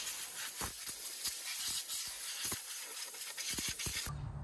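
Compressed-air blow gun blasting air into an air-conditioner condenser's electrical compartment to clear out spider webs: a loud, steady hiss with a few low thumps, cutting off suddenly about four seconds in.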